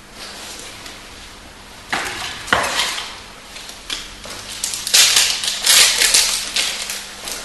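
Foil wrapper of a Magic: The Gathering booster pack crinkling and crackling as it is handled and torn open. The sound starts about two seconds in and is loudest in the second half.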